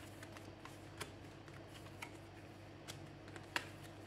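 Oracle cards being laid down one by one onto a table, making faint, sharp taps and clicks about once a second, the loudest about three and a half seconds in. A steady low hum runs underneath.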